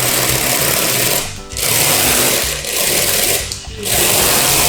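A small electric motor whirring in runs of about two seconds, each broken by a brief pause.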